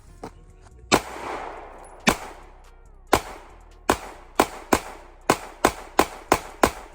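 A gun firing about eleven shots, a second or so apart at first, then faster at about three a second in the last half.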